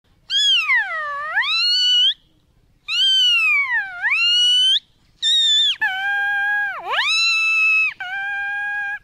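A man imitating a bird call with his mouth. Two long calls slide down in pitch and back up again. A third, longer call dips sharply partway through and ends on a steady held note.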